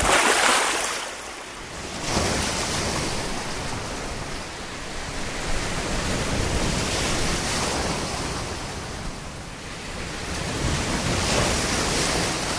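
Sea surf: waves washing in and breaking on the shore, the rush swelling and easing every few seconds.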